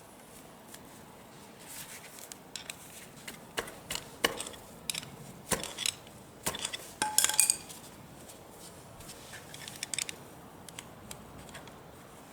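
Metal hand tools and small metal parts clinking and knocking in a string of short, sharp clinks, the loudest a ringing clink of metal on metal about seven seconds in.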